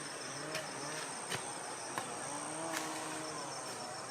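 Insects trilling steadily in forest, a high-pitched continuous chorus with a faster pulsing trill beneath it, and a few faint soft knocks.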